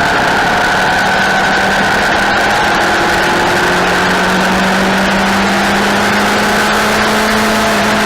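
Track motorcycle engines running steadily at a loud, held pitch, with a lower engine note growing stronger and rising slightly about four seconds in.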